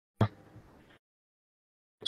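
A single clipped fragment of a voice about a fifth of a second in, then complete silence, as if the audio has dropped out.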